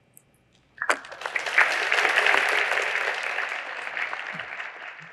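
Audience applauding. It starts suddenly about a second in and slowly fades toward the end.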